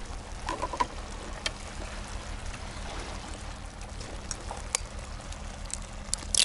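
Shakshuka sauce of tomatoes and tushonka simmering in a kazan: a steady bubbling hiss, with a few light clicks of utensils. Near the end comes a sharp crack as an egg is broken over the pot.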